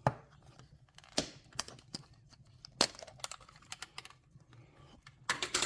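Irregular sharp clicks and taps of a multi-tool's hard case being handled, about a dozen in all with a quick cluster of clicks near the end.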